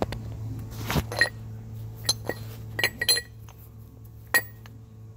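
Metal parts of a rear main seal installation tool clinking and knocking as they are handled and the seal is fitted onto it: a scattered series of sharp clinks, some with a short metallic ring, over a steady low hum.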